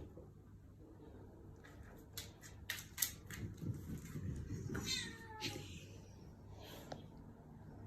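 A few sharp clicks or taps, then about five seconds in, one drawn-out animal call that falls in pitch.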